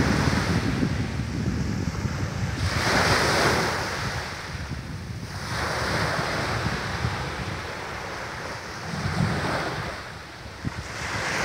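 Small waves breaking and washing up a sand-and-shingle beach, swelling into a fresh surge of hiss about every three seconds. Wind buffets the microphone throughout.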